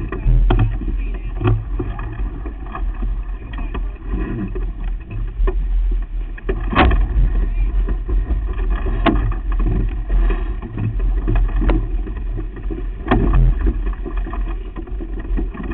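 Steady low rumble of wind and water on a sailboat under sail. Several sharp knocks come through it, the loudest about seven seconds in.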